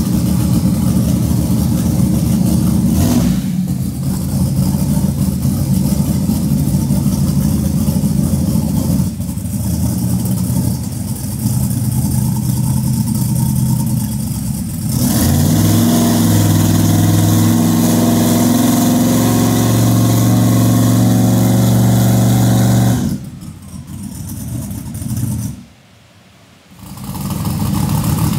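Twin-turbo 438 billet LS small-block V8 of a Corvette C6 drag car running on a hub dyno. The engine holds steady speeds, steps up in pitch and loudness about halfway through, holds there, then falls away to a brief lull near the end before it is heard again.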